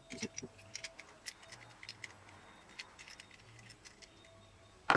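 Scattered small clicks and taps of skateboard parts and a tool being handled as the wheels are taken off the trucks, with one sharp knock near the end.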